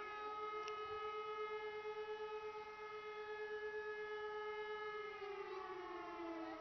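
About four E57 electric motor sirens heard from a distance, sounding a short test wail (the 'Probe' signal). They hold one steady tone that wavers in loudness as their pitches beat against each other, then begin to wind down with falling pitch about five seconds in.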